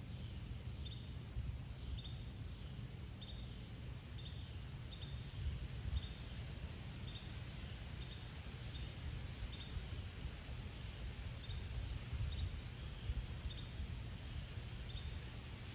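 Insects droning in a steady high tone, with a short chirp repeating about once a second over it. Beneath them is an uneven low rumble that swells a couple of times.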